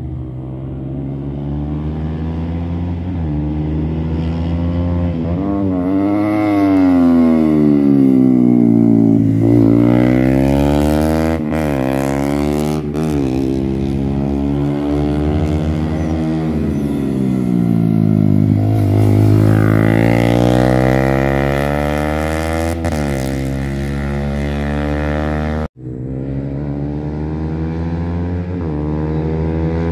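Small-capacity racing motorcycle engines running hard around a circuit: the pitch climbs and sweeps back down as bikes come past, twice, then drops out suddenly about 26 seconds in and starts climbing again.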